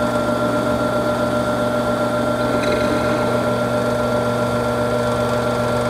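Drill press running with a steady hum as a center drill is fed down into a Pietta 1860 Army revolver rammer to cut a starting guide hole.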